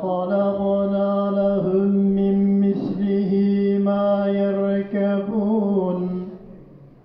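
A man chanting Quran recitation in one long melodic phrase, held mostly on one note with small ornaments, trailing off about six seconds in.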